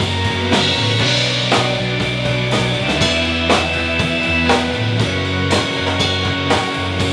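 Live rock band playing an instrumental stretch of a song: the drum kit keeps a steady beat of about two hits a second over sustained bass notes.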